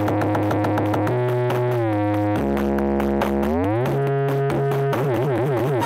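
Loud electronic music from a huge outdoor sound-system speaker stack: held synthesizer notes over a deep, heavy bass. The notes slide down in pitch about two seconds in, glide back up near four seconds, and warble near the end.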